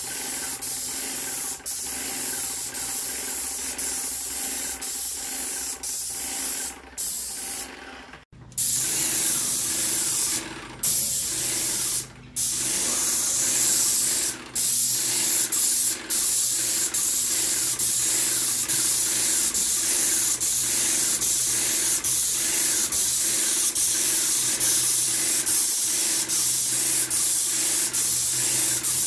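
Airless paint sprayer gun spraying primer onto bare OSB, a steady high hiss of atomised paint. The hiss cuts off briefly several times in the first half as the trigger is let go, then runs on unbroken.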